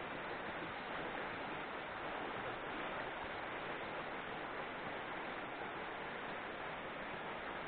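Steady rushing of a small, shallow river running over stones, an even hiss without breaks.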